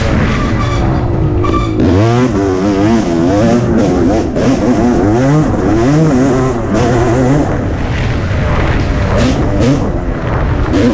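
1988 Suzuki RM250 two-stroke single-cylinder motocross engine being ridden hard, its pitch climbing and dropping over and over with throttle and gear changes. Short bursts of noise from the rough ground run through it.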